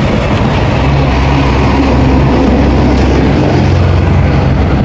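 An engine running steadily with a low hum throughout, with a noisy rumble over it.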